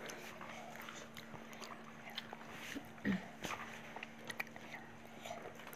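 Faint eating sounds: people chewing and eating biryani with their hands, with scattered small smacks and clicks and one louder brief sound about three seconds in, over a faint steady hum.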